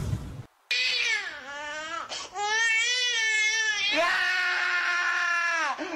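A baby crying in three long, wavering wails, after a brief silence at the start.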